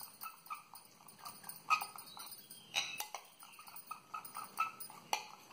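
Spoon stirring a sticky mix of peanut butter and honey in a bowl: irregular soft clinks and scrapes, with a few sharper clinks.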